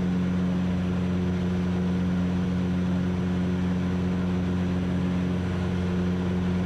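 Van's RV-8's four-cylinder Lycoming engine and propeller droning steadily in a climb, the pitch holding even throughout.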